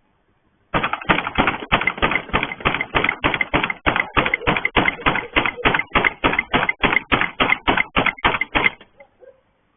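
Rapid, loud banging on a gate: an even run of about thirty blows, roughly four a second, which starts about a second in and stops near the end.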